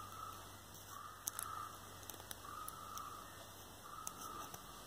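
Faint handling sounds with a few small clicks as component leads are fitted through the holes of a perfboard. Faint short tones repeat in the background about every second and a half.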